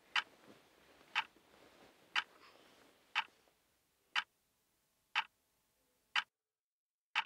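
Clock ticking steadily, one sharp tick a second, eight ticks in all. The faint background hiss cuts out about six seconds in, so the last tick sounds alone in total silence.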